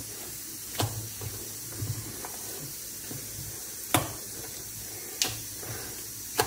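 Soft, sticky sweet bonda batter being beaten by hand in a steel bowl: soft wet slaps and squelches over a steady hiss, with a few sharp clicks.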